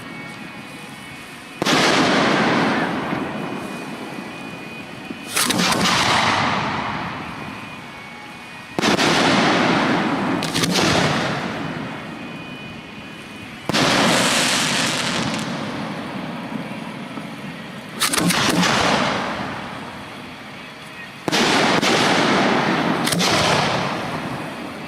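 Professional display fireworks (1.3G) going off: six loud shell bursts a few seconds apart, each a sudden bang trailing into a long fading crackle and rumble, with a few sharp extra cracks in between.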